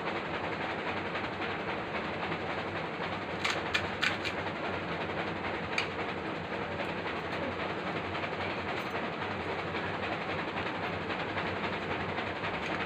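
Steady rushing background noise, with a few short crisp cracks of puris being broken and eaten about three and a half to four seconds in and again near six seconds.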